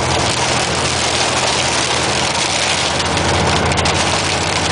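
Hail and heavy rain pelting the vehicle's roof and windshield in a dense, steady clatter, heard from inside the cab, with the engine running underneath.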